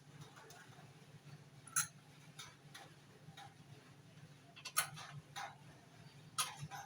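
Scattered light clicks and knocks from hand work on the car. Three louder ones come about two, five and six and a half seconds in, over a faint low steady hum.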